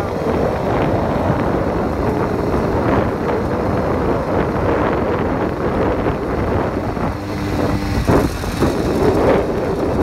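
Small engine of an 80cc bike running while riding along a dirt lane, with wind buffeting the microphone.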